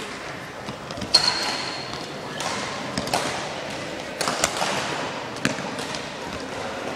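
Badminton rally: several sharp racket-on-shuttlecock hits a second or so apart, each with a short echo, and a brief high squeak of a shoe on the court floor about a second in.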